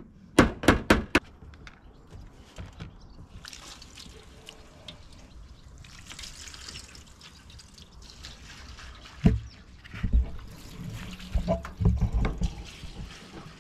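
A quick run of about four sharp metal taps on zinc flashing. Then water poured from a bucket splashes over clay roof tiles and trickles down the new zinc valley flashing. A few dull thumps follow near the end.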